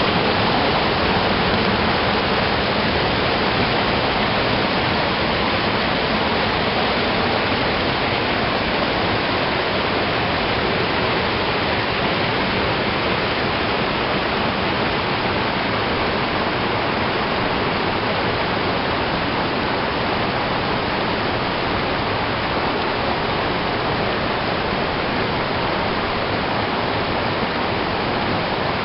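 Spring-fed stream rushing and splashing over rocks and small cascades, a steady, unbroken rush of water.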